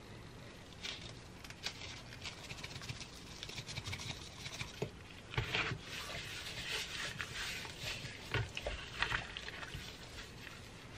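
Plastic-gloved hands rubbing and patting seasoning into the skin of a raw whole chicken on a metal sheet pan: soft, irregular rubbing and squishing with light pats.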